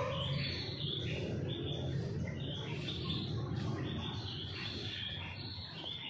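Many small birds chirping and twittering at once, over a steady low rumble.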